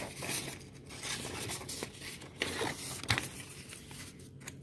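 Paper rustling and rubbing as a notebook is handled and opened to a blank page, with several short scrapes and a few light knocks.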